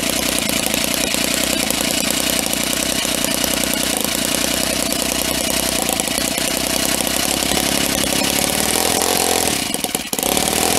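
Enjomor Whippet 10cc single-cylinder side-valve glow-plug model engine running fast and steadily, then faltering briefly near the end before picking up again as its small fuel charge runs out.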